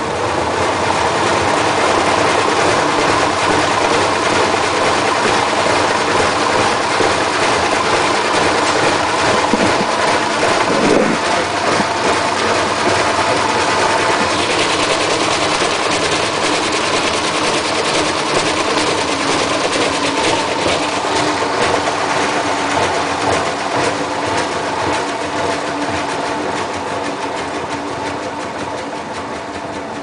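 Hotpoint Ultima WT960 washing machine spinning a load of towels with its door open, the drum and motor running loud and steady. The level eases off gradually over the last third as the spin slows.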